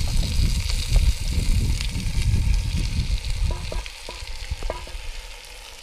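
Pork chops sizzling in hot olive oil in a cast-iron Dutch oven as a breadcrumb mixture is poured over them, under a low rumble; the sound gets quieter after about four seconds.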